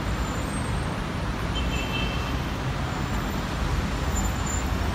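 Steady road traffic noise with a low rumble and no distinct single vehicle, plus a brief faint high tone about two seconds in.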